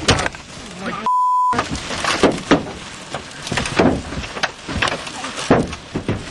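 Baseball-sized hailstones striking the truck's body, roof and glass, heard from inside the cab as loud, irregular bangs. About a second in, a short steady beep briefly replaces the sound.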